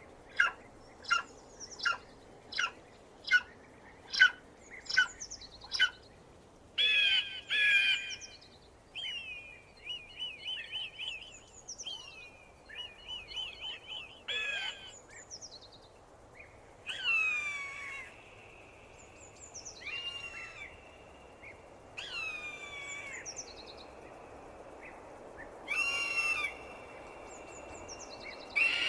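Eagle calling: a quick run of short, sharp, high chirps about twice a second, then chattering bursts and several longer high cries that slide downward in pitch.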